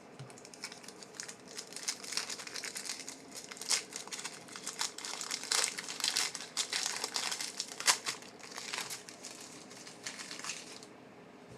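Crinkling of a foil trading-card pack wrapper being handled and opened, an irregular run of crackles with sharper louder ones scattered through it, stopping about a second before the end.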